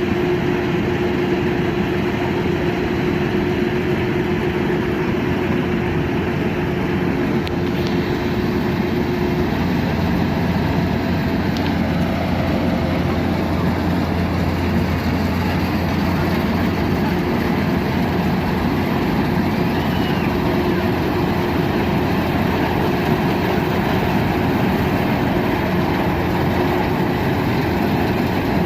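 Kubota DC-120X combine harvester running steadily, its diesel engine and machinery giving a continuous hum. A steady whine in the sound drops out about nine seconds in.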